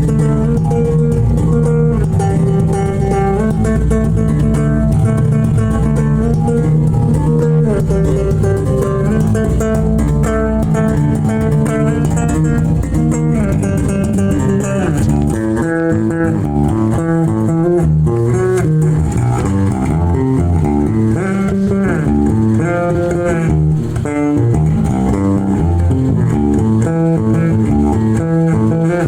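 Sterling by Music Man Ray35 five-string electric bass fitted with upgraded pickups, played in a continuous groove: held low notes at first, then a quicker line of separate plucked notes from about halfway on.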